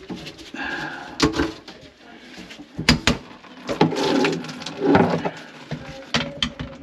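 Irregular knocks, clicks and scraping of hands working on a kitchen sink's drain pipes, with about half a dozen sharp knocks among stretches of rubbing.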